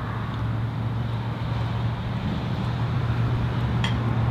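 Steady low mechanical hum over an even outdoor background rumble, with a light click near the end.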